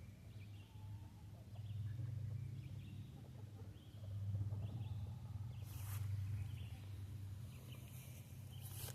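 Outdoor yard ambience: a low rumble that swells and fades, with faint short bird chirps scattered through it. Two brief rustles, one about six seconds in and one at the very end.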